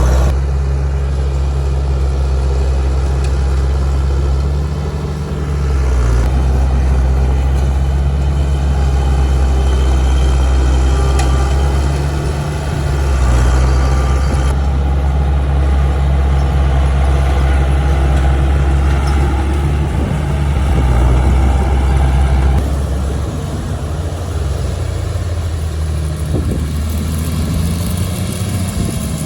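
Heavy diesel engine of earthmoving machinery running steadily under a low, strong hum, with abrupt shifts in its tone a few times.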